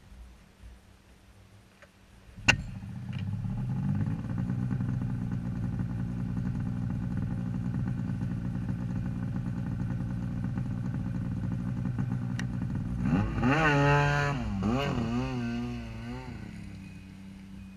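Ski-Doo Freeride 800 E-TEC two-stroke snowmobile engine starting with a sharp click about two and a half seconds in, then idling steadily. Near the end it revs up and down several times as the sled pulls away, and fades.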